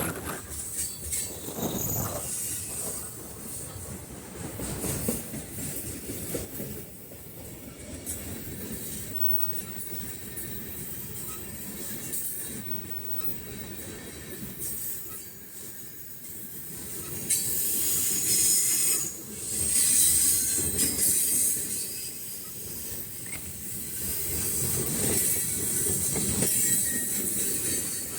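Freight train of boxcars rolling past, a steady rumble of wheels on rail with some clatter over the joints and high-pitched wheel squeal. The squeal is loudest about two-thirds of the way through and again near the end.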